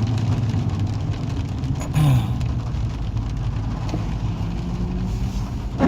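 Car engine running with road noise, heard from inside the cabin, with a short louder bump and a falling tone about two seconds in.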